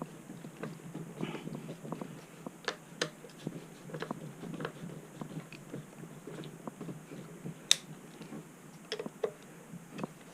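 Hands handling small parts and tools during reassembly: scattered light clicks and taps, with one sharp click about eight seconds in.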